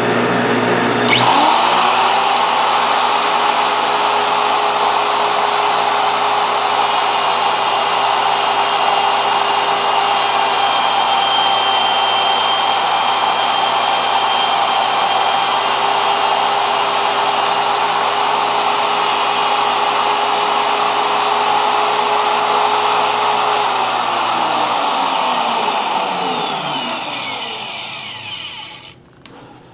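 A router starts about a second in with a rising whine and runs at steady speed as its bit cuts a radius profile into a spinning wooden sanding drum, over a steady lower machine hum. From about 24 s it is switched off and its pitch falls as it winds down, and the sound stops abruptly near the end.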